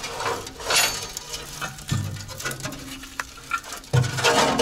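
Irregular scraping, rustling and light metal knocks of a trailer's air receiver tank being unbolted and lowered by hand.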